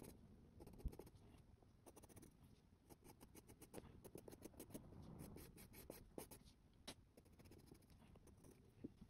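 Soft 8B graphite pencil scratching faintly on drawing paper in many quick, short shading strokes, with one soft knock about a second in.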